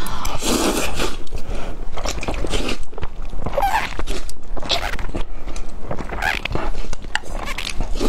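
Close-miked eating: a person slurping mouthfuls of sticky, sauce-coated instant fire noodles (buldak) off a plate and chewing them, in repeated wet bursts.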